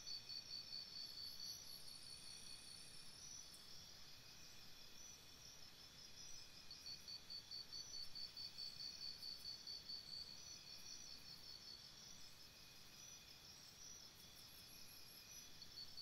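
Jungle insects chirping: several high-pitched, evenly pulsed calls, the strongest at about five pulses a second, repeating steadily and overlapping. The whole is faint.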